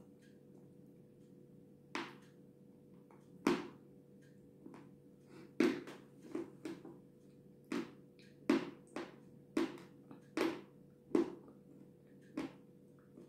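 Close-up wet mouth sounds of chewing soft cake with cream: irregular lip smacks and squishy clicks, about a dozen, spaced a second or so apart.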